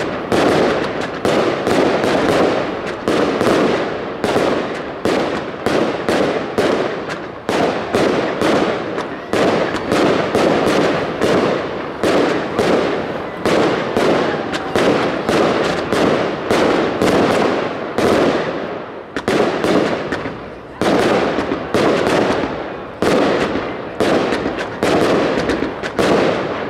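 Consumer fireworks bursting overhead in a fast, continuous run of bangs, about two a second, each one dying away quickly before the next.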